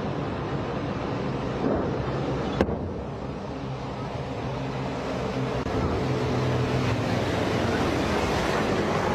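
Diesel engines of military KamAZ trucks running as the trucks drive along the road, getting louder in the second half as one passes close. A single sharp click comes about two and a half seconds in.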